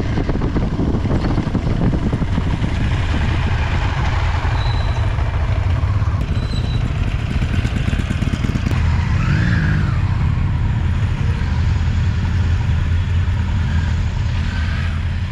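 Motorcycle engine running steadily while riding, heard from the bike with wind noise over it. About nine seconds in, a brief engine rev rises and falls in pitch.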